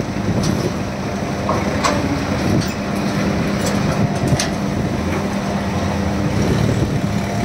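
Sugar cane stalks sliding and clattering out of a tipped-up tractor trolley, with a few sharp knocks, over a steady low drone of heavy engines and machinery running.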